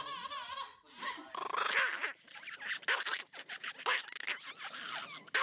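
A small long-haired dog growling and grumbling in rough, broken bursts, starting about a second in.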